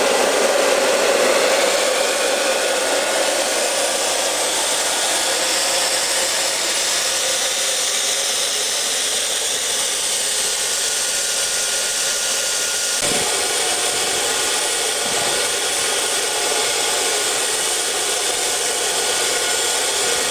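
Homemade propane-fuelled turbojet built from a turbocharger, running with a steady loud rushing whoosh that eases slightly in the first few seconds. A faint thin whine sits under it, and there is a single thump about 13 seconds in.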